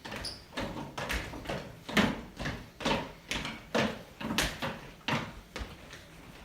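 Footsteps of people running across a floor: irregular thuds about three a second, dying away near the end.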